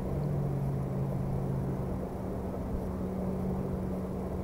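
A motor droning steadily: a low, even hum over a rushing noise, with its deeper tone dropping out about two seconds in.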